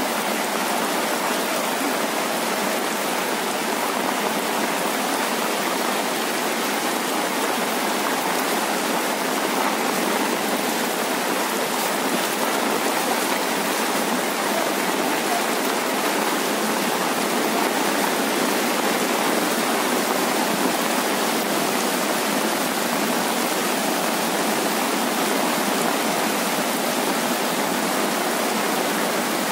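Steady rush of a swollen, muddy river in flood, with heavy rain falling.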